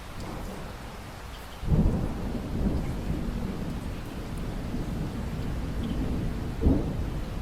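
Thunderstorm: steady rain falling, with a peal of thunder breaking about two seconds in and rumbling on, and a second, sharper crack near the end.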